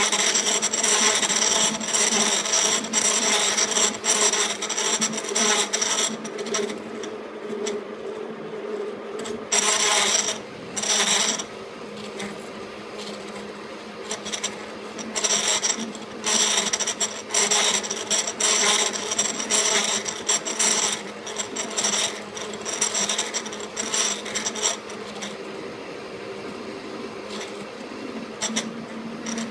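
E1N metal lathe running with a steady hum while a cutting tool works the spinning metal, giving spells of scraping cutting noise. The cutting is heaviest in the first few seconds and again through the middle and second half, then eases off near the end.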